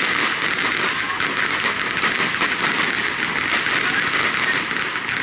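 Fireworks display: a dense, steady crackling of many rapid small pops as shells burst into showers of sparks overhead.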